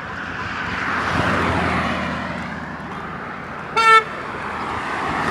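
Road traffic: a vehicle passes, its tyre and engine noise swelling and fading, then a single short car horn toot about four seconds in, the loudest sound, as another vehicle approaches.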